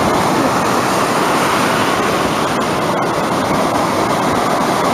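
Ocean surf breaking and washing up the beach, a steady rush of water.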